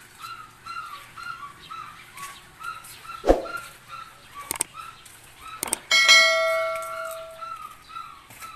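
A bird calling over and over in short chirps, about three a second, with a few sharp knocks. About six seconds in, a bell-like metallic ring starts suddenly and fades over a second or so.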